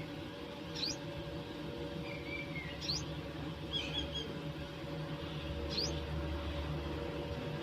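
Sparrows at the nest giving short, thin, high chirps that sweep upward, three of them a couple of seconds apart, with a softer falling call and a wavering chirp in between, over a steady low hum.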